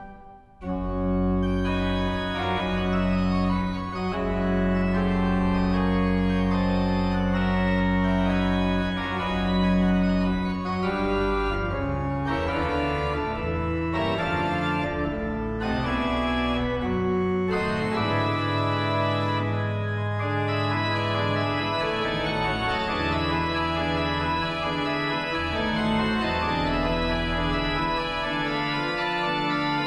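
Church organ playing full sustained chords over deep held pedal notes. It breaks off briefly just after the start, then a loud chord comes in and the chords change slowly from there.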